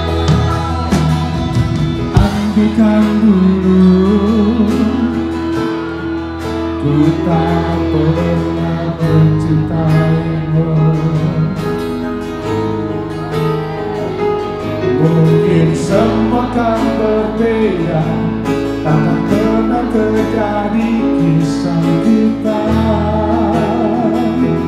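A live pop band playing on stage, with electric guitars, keyboard and a held bass line that shifts note every few seconds, and a voice singing the melody over it.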